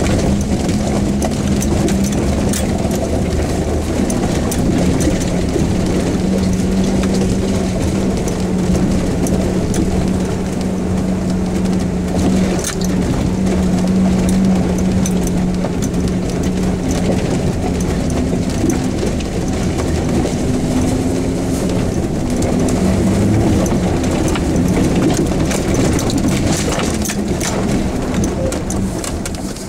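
Lifted Jeep Wrangler YJ driving slowly over a rough, stony lane, heard from inside the cab: a steady engine drone with constant rattles and knocks from the body and the stones under the tyres.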